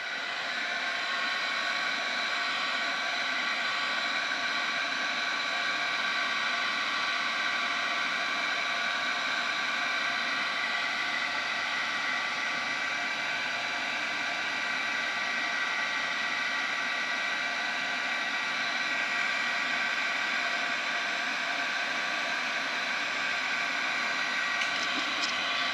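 Electric heat gun running steadily, its fan giving a steady multi-tone whine over a rush of hot air, shrinking heat-shrink tubing over a soldered wire splice. A few small clicks near the end.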